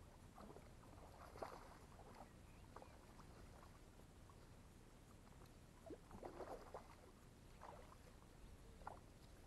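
Faint, scattered water splashes at the lake's edge as a hooked trout is drawn into a landing net, in a short cluster about a second in and a longer one past the middle, over a low steady rumble.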